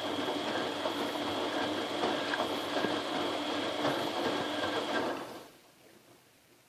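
Fisher & Paykel front-loading washing machine running its wash cycle: the motor turning the drum gives a steady hum with a high whine, and it stops about five seconds in.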